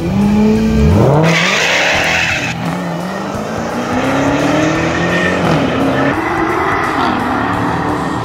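Drag-race launch of a Dodge Challenger Hellcat's supercharged V8 alongside a Nissan GT-R. About a second in, the Hellcat's rear tire breaks loose and spins with a hiss-like squeal for about a second, losing traction. The engines then wind up through the gears as the cars pull away.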